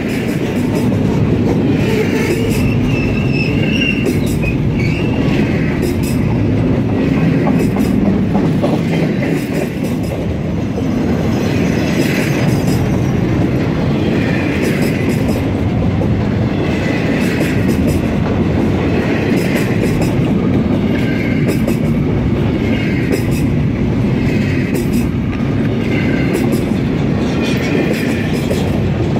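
Double-stack container train's well cars rolling past at speed: a steady loud rumble of steel wheels on rail with rhythmic clickety-clack, and brief high wheel squeals recurring every couple of seconds.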